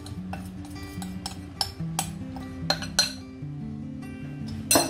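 Background music with held notes, over sharp clinks of a metal spoon against a glass bowl and pan as milk powder is scraped out. The loudest clink comes near the end.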